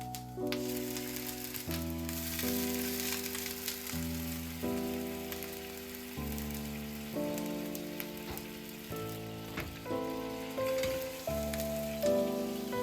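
Food sizzling and crackling in a hot frying pan, under soft background piano music that moves through sustained chords.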